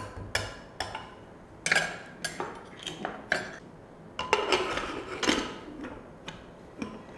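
Steel spoon clinking in a pressure cooker and set down in a steel bowl, then the pressure cooker lid fitted and its handle pressed shut: a series of separate metal clinks and knocks, some ringing briefly.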